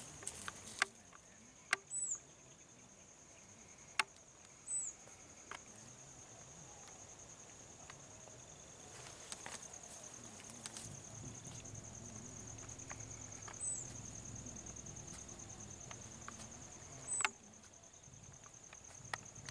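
A jungle insect trilling steadily on one high, pulsing note, with a few sharp snapping clicks like twigs breaking in the undergrowth. Four short high chirps stand out, the loudest sounds here, at about 2, 5, 14 and 17 seconds.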